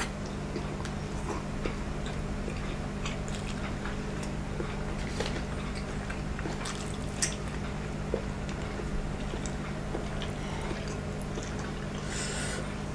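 Close-up chewing of a bite of uncooked canned luncheon meat: soft, wet mouth clicks now and then over a steady low hum. Near the end, a brief soft rustle as a forkful of noodles is lifted.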